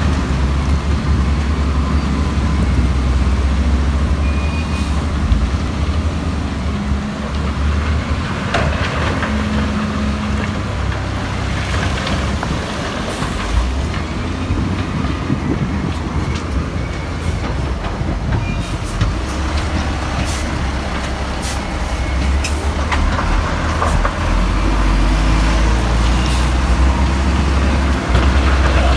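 Heavy diesel earthmoving machinery running steadily with a deep engine rumble. Scattered clanks and clicks come through, most of them in the middle to later part.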